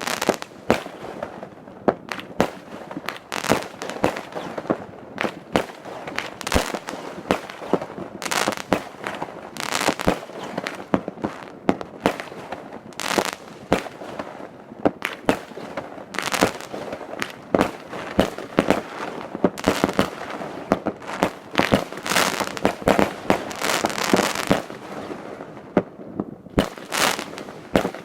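Fireworks display: a steady run of sharp bangs and pops from bursting shells, often several a second, over continuous crackling, easing briefly near the end.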